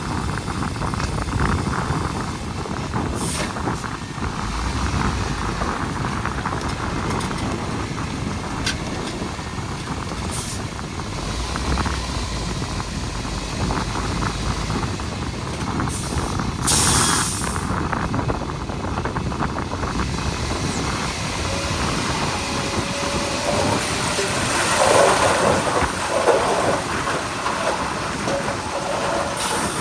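Heavy earthmoving machinery at work: a diesel engine running steadily with clanking, and a short hiss of air about seventeen seconds in.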